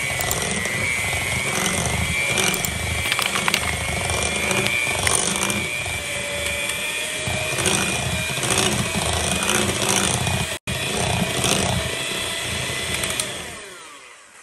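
Electric hand mixer running steadily with a high motor whine, its beaters churning eggs, sugar and oil in a glass bowl with scattered clicks as they touch the glass. It is switched off near the end and the sound dies away.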